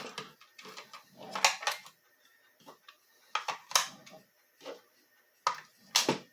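AA batteries being fitted into a plastic tool's battery compartment: a series of separate sharp clicks and knocks, a second or so apart.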